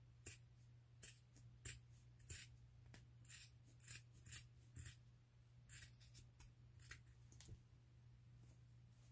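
Scissors snipping through a knit sock: about a dozen faint, short snips, roughly one or two a second, which stop about seven and a half seconds in. A steady low hum sits underneath throughout.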